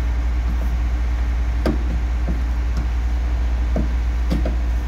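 Uneven metal knocks and taps, about six of them, from a hand tool working the metal frame edge of a bus wheelchair ramp, over a steady low hum.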